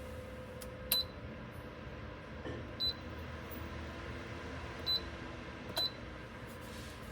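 Four short, high electronic beeps from the Dreo ceramic space heater's button panel, about a second or two apart, as its settings are pressed. Under them runs the steady sound of the heater's fan.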